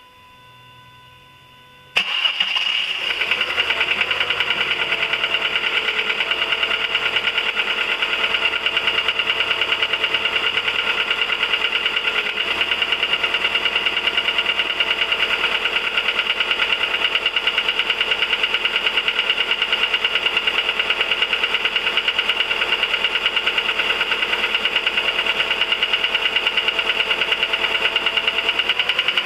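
Volkswagen 1.4 16V four-cylinder petrol engine starting about two seconds in, then running with a rapid, even ticking. The owner links the tick to the oil pump, with oil burning as a consequence.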